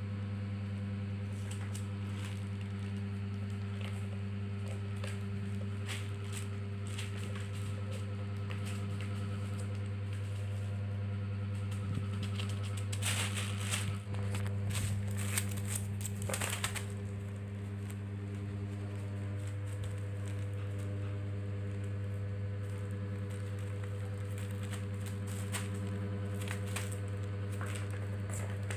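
A steady low hum throughout, with scattered rustling and light clicks over it, busiest about halfway through: a kitten moving on a plastic sheet and batting at the balls of a plastic ball-track tower toy.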